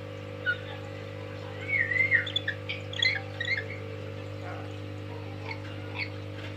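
Pet lory (nuri) calling: a short call, then a quick run of gliding whistles and sharp chirps, then a few fainter calls near the end.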